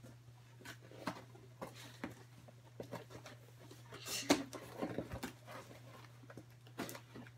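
Scalpel blades scraping and slitting through tape and cardboard as packages are cut open, with scattered taps, scratches and rustles of cardboard and paper; a sharper knock comes about four seconds in. A steady low hum runs underneath.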